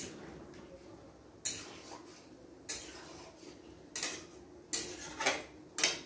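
Metal spatula clinking and scraping against a metal kadai while curry is stirred: about seven sharp clinks spaced irregularly, closer together near the end, over a faint steady hum.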